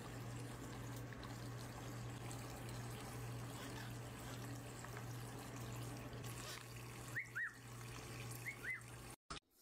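Water trickling from a toy bird-bath faucet onto a bathing parrot, over a steady low hum. Near the end the amazon parrot gives four short falling chirps in two pairs.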